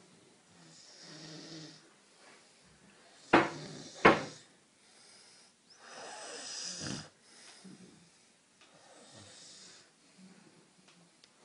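A sleeping person snoring, with slow breaths swelling every couple of seconds. Two sharp clicks about three and four seconds in are louder than the snoring.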